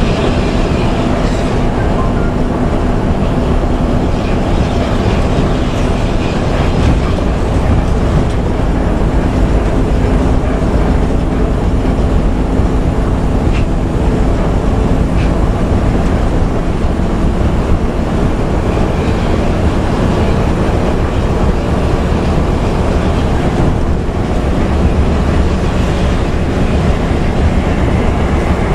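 Intercity bus engine and exhaust droning steadily with tyre and road rumble, heard from inside the cabin while cruising on a highway. The bus is fitted with a loud aftermarket exhaust.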